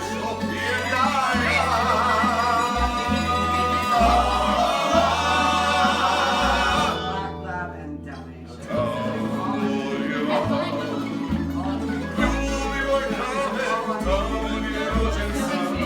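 Croatian tamburitza folk ensemble playing live: plucked tamburica strings over a walking bass, with singing. The music dips briefly about halfway through, then picks up again.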